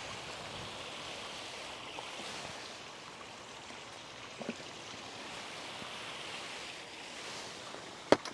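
Steady outdoor background hiss with no clear source, broken by a single sharp click near the end.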